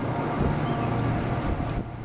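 Wind buffeting the microphone in uneven low thumps over a steady low hum.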